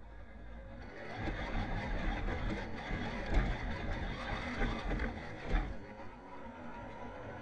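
Tamiya CC-01 Unimog radio-controlled scale truck driving over leaf-covered ground, heard from a camera in its cab: electric motor and drivetrain running, with rattling knocks and jolts from the undamped rear axle. It grows louder about a second in as the truck speeds up.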